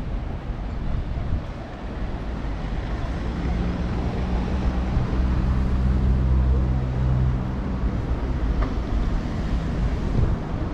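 Traffic ambience with a vehicle engine passing: a low hum swells about a third of the way in, is loudest around the middle, and fades away soon after.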